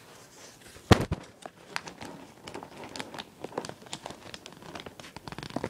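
Plastic DVD packaging being handled, crinkling with scattered small clicks, and one sharp click about a second in that is the loudest sound.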